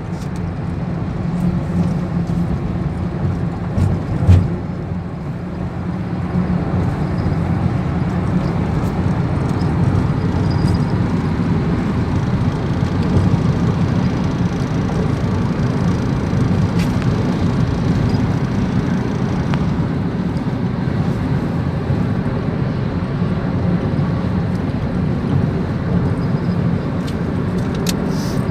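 Strong storm wind buffeting the microphone as a steady low rumble, with one sharp loud thump about four seconds in.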